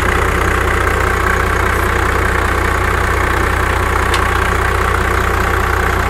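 1995 Dodge Ram 3500's 5.9-litre Cummins diesel engine idling steadily, with a faint click about four seconds in.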